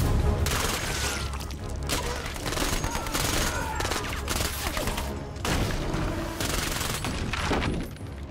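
Rapid, repeated gunfire from an action film's sound mix, a dense run of shots with brief lulls.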